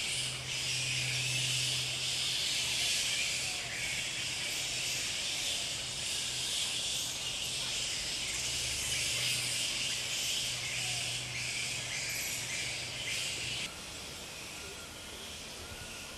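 Dense, steady shrill hiss of a forest insect chorus over a low steady hum. Both drop away sharply about two seconds before the end, leaving a quieter background with faint chirping.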